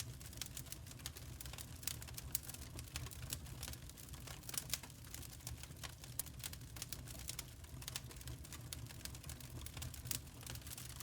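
Wood fire crackling: irregular small pops and ticks over a low steady rumble.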